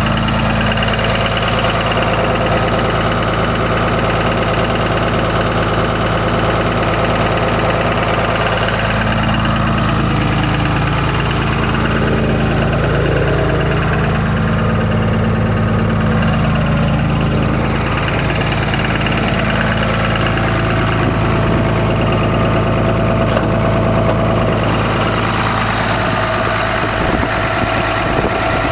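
Cummins diesel engine idling steadily with a knock, which the owner takes for a rod knock. Its speed dips briefly about eleven seconds in, then comes back.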